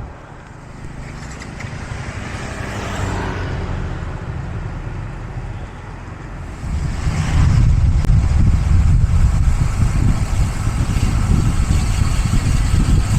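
A road vehicle's engine running as a steady low rumble, turning much louder and heavier about halfway through.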